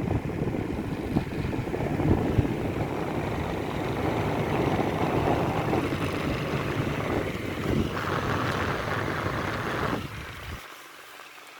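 Tecnogas TBF-615 6-inch mini box fan running, a steady rush of air with a low rumble from its airflow buffeting the microphone. The sound falls away sharply near the end.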